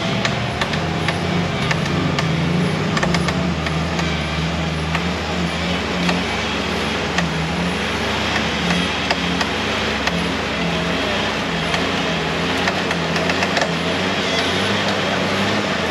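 Jeep Cherokee XJ engine running steadily under load as the truck crawls through deep mud on mud tyres, with scattered clicks and knocks over the drone.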